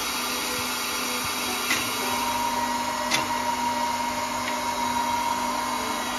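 Ribon RUR 500 universal grinder running: its wheelhead electric motor and belt-driven spindle hum steadily. A higher whine comes in about two seconds in, and there are two sharp clicks.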